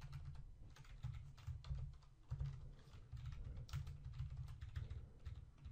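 Faint computer keyboard typing: scattered, irregular key clicks as a short edit is typed.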